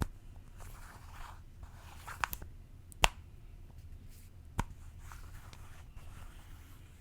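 Small objects being handled close to the microphone: soft scraping and rustling, with three sharp clicks or taps, the loudest about three seconds in.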